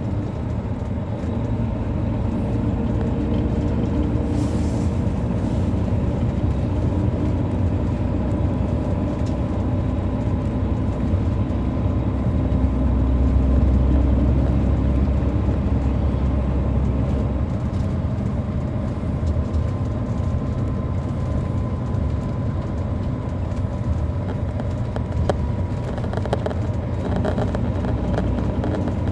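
The Caterpillar C13 diesel engine of an MCI D4500CL coach, heard from on board while the bus is under way: a steady low drone that swells about twelve seconds in and eases back a few seconds later, with a thin steady whine above it.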